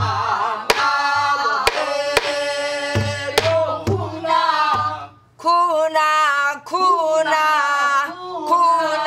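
Pansori singing with a buk barrel drum struck in accompaniment. There are sharp drum strokes under the sung lines in the first four seconds, a short break about five seconds in, then the voice takes up the line again.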